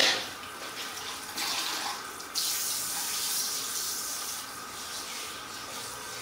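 Running water rinsing a person's face and neck, a steady rush that steps up louder about two seconds in.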